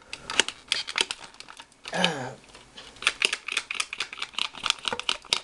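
Rear pump handle of a Buzz Bee Mega Missile foam-rocket air blaster being worked in quick short strokes, giving rapid plastic clacks at about five a second as its air tank is pressurised for a launch. About two seconds in, a brief falling voice-like sound breaks the rhythm.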